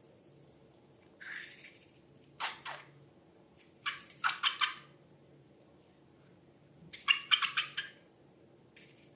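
Wet slime being squished and stirred, heard as four or five short bursts of sticky crackling and squelching.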